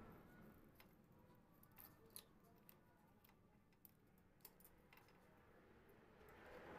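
Near silence, broken by scattered faint small clicks of a motorcycle carburettor's metal parts being handled, about a dozen at uneven intervals.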